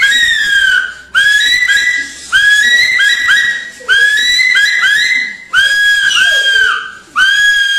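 A man imitating a call with a high, whistle-like sound, loud and mostly on one pitch. It comes in quick runs of two to four short notes, each scooping up at its start, and turns to longer held notes near the end.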